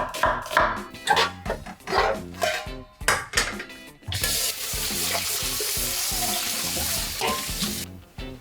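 Food frying in a hot pan, a steady sizzle that starts suddenly about halfway through and cuts off near the end.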